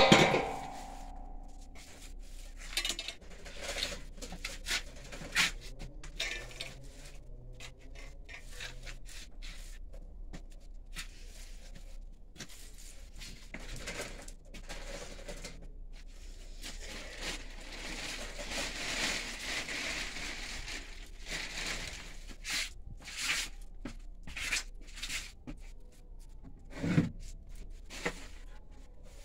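Rabbits rustling and scratching in dry straw bedding as a doe makes her nest before kindling: scattered scratchy clicks and scrapes, with a longer stretch of rustling about two-thirds of the way through. A sharp knock sounds right at the start.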